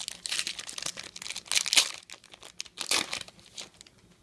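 Trading-card pack wrapper crinkling and tearing as a new pack is opened, in a few sharp bursts, the loudest about halfway through.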